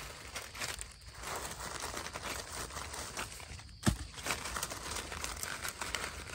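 Dry fallen leaves rustling and crackling as a gloved hand rummages through leaf litter under shrubs, with one sharper knock about four seconds in.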